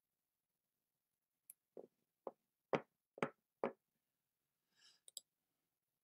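Five dull knocks, about half a second apart, then a brief faint rustle and two sharp clicks.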